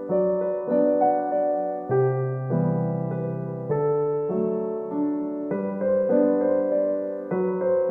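Background piano music: gentle electric-piano chords changing about once a second.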